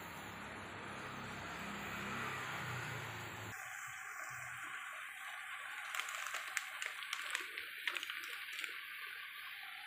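Instant noodles boiling in a pan of water on a gas stove: a steady bubbling hiss. After an abrupt cut about three seconds in, a quieter hiss, then a quick run of crinkles from the plastic noodle packet being picked up.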